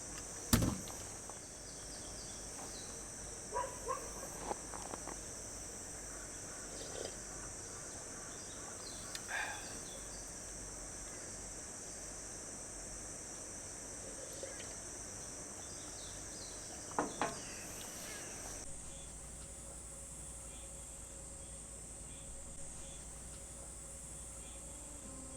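Steady high-pitched chorus of summer insects, with a few scattered short knocks and clicks, the sharpest one just after the start and a pair about two-thirds in.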